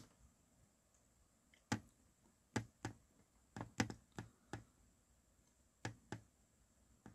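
Faint, irregular clicks and taps, about ten in all, some coming in quick pairs.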